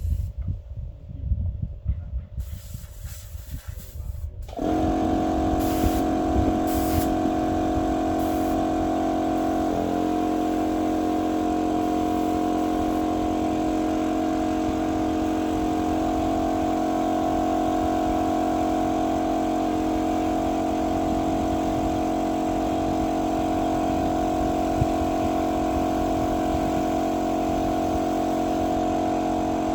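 Irregular low rumbling and knocks, then a motor-driven machine starts about four and a half seconds in and runs with a steady, unchanging hum.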